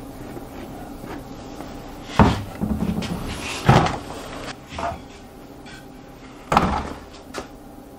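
Knocks and clatter of workshop handling: a plastic glue bottle set down on a concrete floor and cedar pieces and tools moved. Three sharp knocks come about two, three and a half and six and a half seconds in, with scraping and rustling between the first two.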